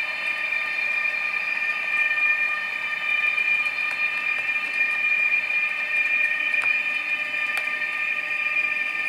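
H0-scale model freight train running, with a steady high whine that holds one pitch. Faint ticks come twice near the end.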